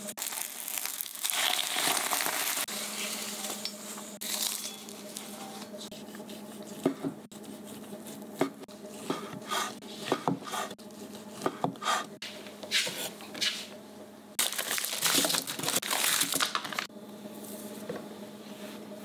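Kitchen food preparation on wooden cutting boards, over a steady low hum: rustling and scraping, then a knife chopping strips on the board at about two strokes a second, then a loud stretch of rustling and the quieter sound of crab sticks being shredded by hand.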